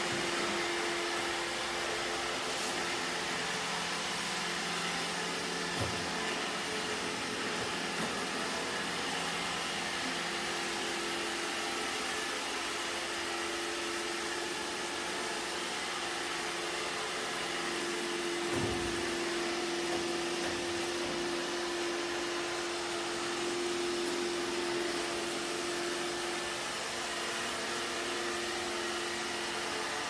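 iRobot Roomba e5 robot vacuum running on a wooden floor: a steady whir of its vacuum motor and brushes with a steady hum, broken by a few brief soft knocks.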